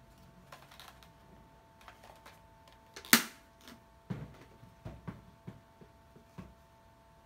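Hard plastic vacuum parts and a Makita cyclone dust collector attachment being handled on a wooden workbench: a sharp plastic click about three seconds in, then several dull knocks as pieces are set down and picked up.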